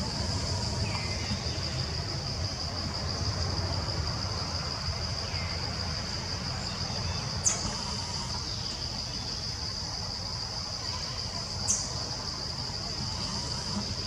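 Insects droning with one steady high-pitched tone, over a low rumble. Two short, sharp, high chirps stand out, about halfway through and again near the end.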